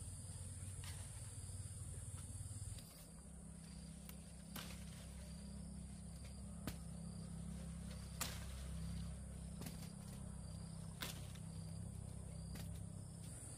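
Steady high-pitched drone of insects, with a few sharp clicks or snaps scattered through it.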